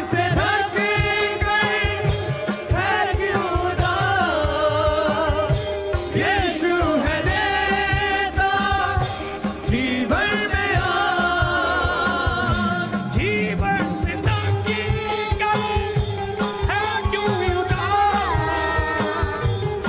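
Christian worship music: a lead melody over a steady drum beat.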